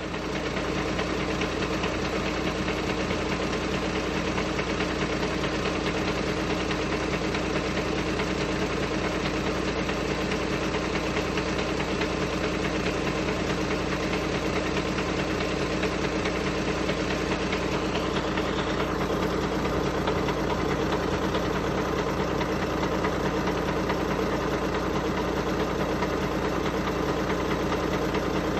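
Volkswagen Passat B7 engine idling steadily from a cold start, making the abnormal noise that the owner hears when it is cold.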